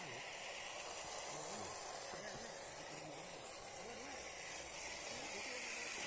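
A 1:10 scale RC crawler driving, its small electric motor and gearbox giving a steady whirring hiss, with faint voices in the background.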